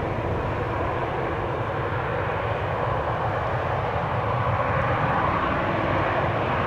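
Airbus A319 airliner's jet engines running steadily on the ground: a constant rushing hum that grows slightly louder about five seconds in.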